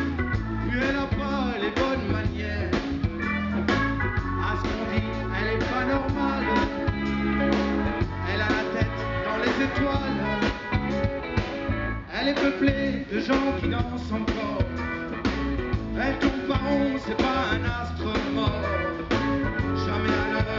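Live band playing, amplified on stage: a man singing lead over a drum kit and electric bass guitar, with a steady beat of drum hits.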